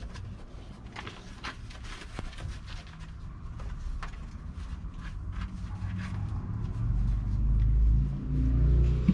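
Rustling of a fleece sweatshirt being handled and shaken out, over a low rumble that grows louder near the end.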